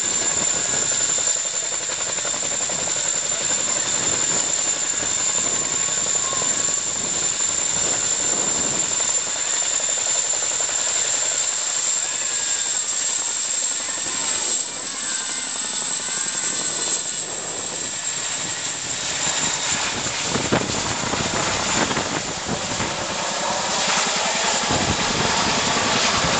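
CH-47 Chinook tandem-rotor helicopter hovering low and then climbing away: loud, steady rotor noise full of rapid blade chop, with a steady high whine over it.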